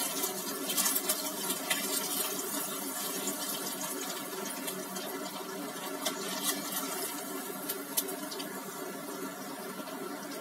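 Tofu slices deep-frying in hot oil in a wok: a steady sizzle dotted with sharp crackling pops, over a steady low hum.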